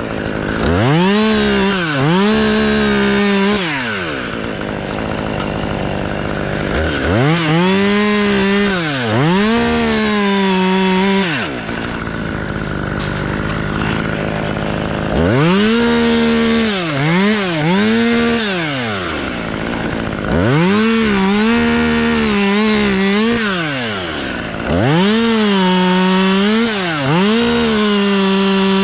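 Gas chainsaw cutting tree limbs. It revs up to full throttle for five cuts of three to four seconds each, and falls back to idle between them. The revs dip briefly during each cut.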